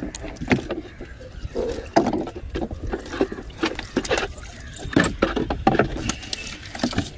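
Irregular knocks and bumps in a small wooden boat, with rustling in between.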